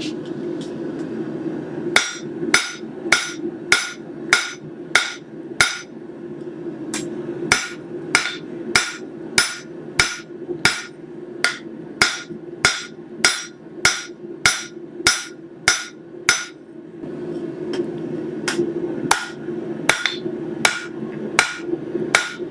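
Hand hammer striking a stainless steel butter-knife blank on the anvil, forging the blade's edge thinner. It lands about two ringing blows a second with two short pauses, over a steady low hum.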